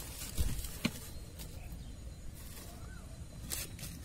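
Hand pressing and rustling dry soil and dead leaves in a grow bag, firming the soil over planted turmeric: a soft thump about half a second in, then a few scattered clicks and light rustles.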